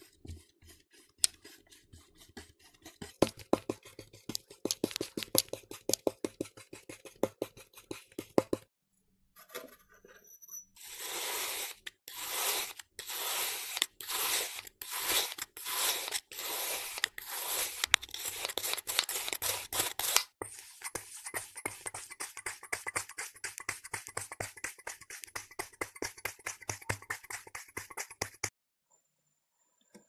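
Kinetic sand crunching and crackling as it is pressed and cut with metal tools: fine crackles first, then a serrated knife sawing through a packed block in repeated strokes, a little faster than one a second, then a dense crumbly crackle that stops shortly before the end.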